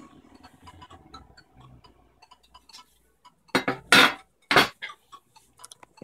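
Light mechanical clicks and rattles from a Princess 300 portable typewriter, with three loud clacks a little past the middle.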